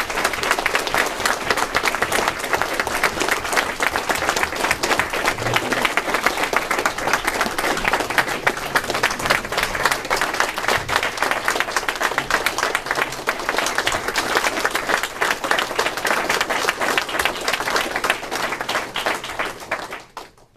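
A roomful of people applauding steadily, then fading out near the end.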